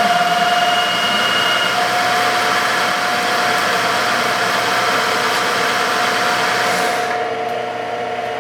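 Sharp VH-3 milling machine's power knee running down at rapid traverse: a steady motor whine with a hiss over it. The hiss drops away about seven seconds in, leaving a quieter hum.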